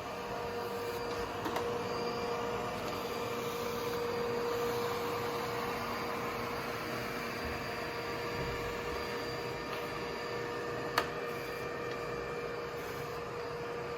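Robot floor cleaner running steadily: an even whirring motor-and-fan noise with a steady hum tone, and one sharp click about eleven seconds in.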